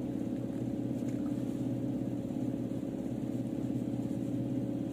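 A steady low machine hum, made of several fixed tones, running without change.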